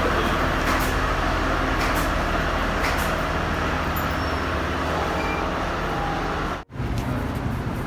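Steady low engine and road noise of a moving vehicle. It cuts out completely for an instant about two-thirds of the way through, then carries on.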